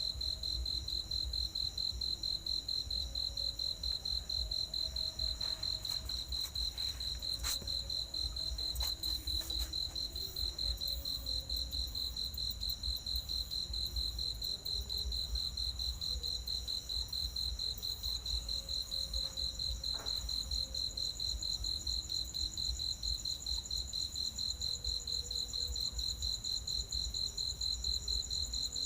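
A steady, rapidly pulsing high-pitched chirping trill, like a cricket's, going on without a break, with a few faint clicks over it.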